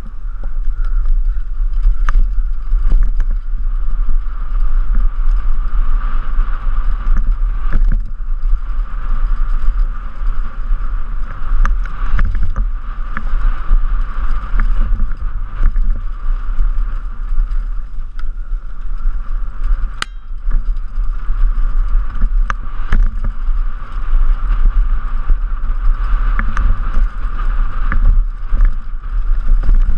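Downhill mountain bike ridden fast over rough ground, heard from a helmet-mounted camera: heavy wind rumble on the microphone, the bike rattling, and frequent sharp knocks as the tyres hit rocks and bumps, with one especially sharp crack about two-thirds of the way through.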